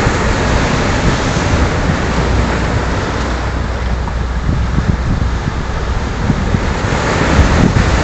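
Rough sea surf breaking and washing over black boulders, swelling at the start and again about seven seconds in, with wind buffeting the microphone as a low rumble.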